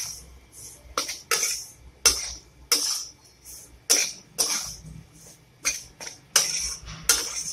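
Flat spatula scraping and tossing a coarse, dryish moong dal filling around a metal kadai: about ten short rasping scrapes, each spatula stroke scraping against the pan.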